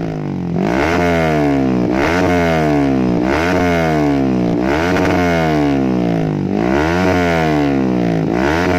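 Yamaha R15's single-cylinder four-stroke engine revved repeatedly through a stainless SKR racing exhaust with no dB killer fitted: about six quick throttle blips, each rising sharply and falling back. The note is loud and noisy.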